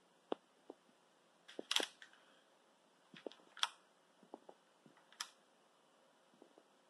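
Scattered light clicks and taps of a metal spatula knocking against the plate and cake while buttercream is spread around the sides of the cake. The loudest knocks fall about two seconds in and again halfway through.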